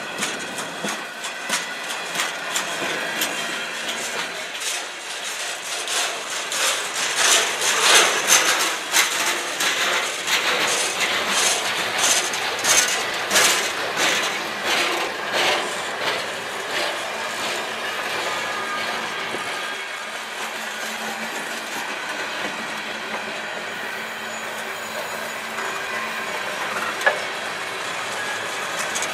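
Freight cars of a manifest train, covered hoppers and centerbeam flatcars, rolling past with their wheels clacking on the rails. The clatter is heaviest in the first half and eases to a steadier rolling rumble, with one sharp click near the end.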